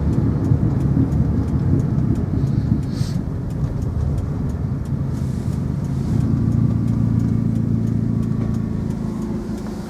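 Car engine and road noise heard from inside a moving car. The engine note settles into a steady hum about six seconds in.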